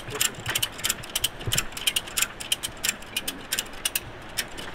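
Ratchet tie-down strap being cranked tight, a run of sharp clicks at a few per second, as a motorcycle is strapped down for the crossing.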